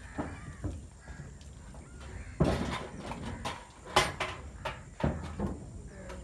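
Irregular knocks and thumps over a low rumble, the two loudest about two and a half and four seconds in.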